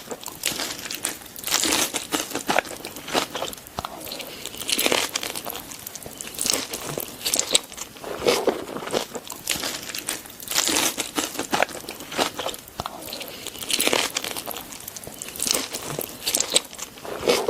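Close-up eating sounds: a person biting and chewing food with irregular crunching and crackling bites.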